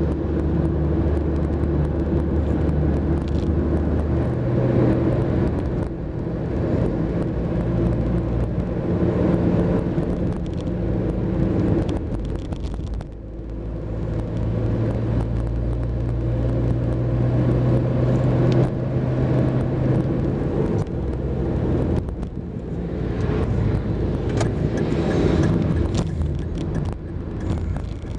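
Passenger car driving in traffic, heard from inside the cabin: a steady engine hum with tyre and road noise. The engine note changes pitch a few times, and the sound dips briefly about halfway.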